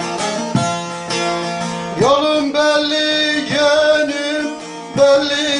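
Bağlama (saz) played with quick plectrum strokes. About two seconds in, a man's voice slides up into a long held sung note over the strings.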